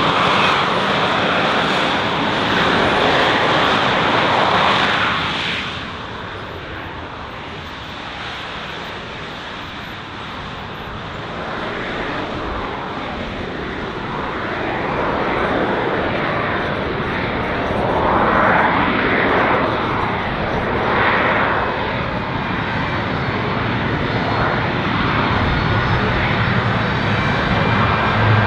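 Military aircraft engine noise, loud for the first five or six seconds, then falling away and building again, with a whooshing that sweeps up and down several times as aircraft pass.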